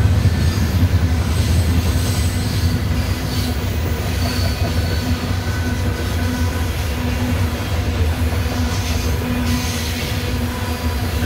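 Loaded Norfolk Southern coal hopper cars rolling slowly past, their wheels making a steady low rumble on the rails, with faint thin wheel squeals now and then.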